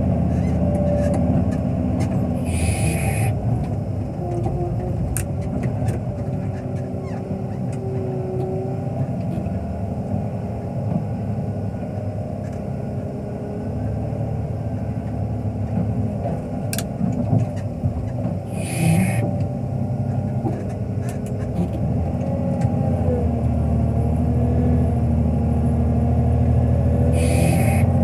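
Wheel loader's diesel engine running steadily, heard from inside the cab, with whining tones that waver up and down in pitch as the loader works. Three short hisses cut through, about 3 seconds in, about 19 seconds in and near the end.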